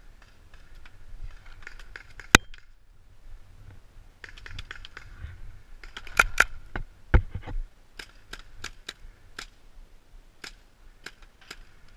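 Paintball marker shots: sharp pops, with one very loud pop about two seconds in, a cluster of loud shots around six to seven seconds, then a run of lighter pops about three a second near the end.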